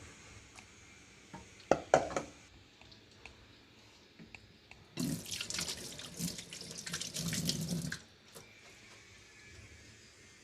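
Water running for about three seconds, starting about halfway through, after two sharp knocks around two seconds in.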